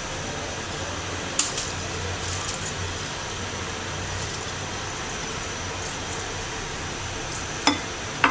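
Steady background hiss with a low hum, broken by a few light clicks and knocks about a second and a half in, around two and a half seconds, and near the end.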